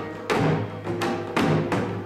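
A drum beaten in a brisk rhythm, about two or three strokes a second, each stroke ringing on, with steady low tones sounding beneath.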